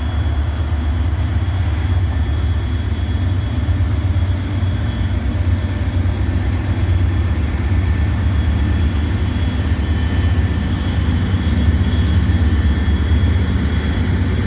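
Norfolk Southern freight train rolling past over the steel Delair Bridge: a steady, heavy low rumble of wheels on rails, with a few faint steady high tones above it and no horn.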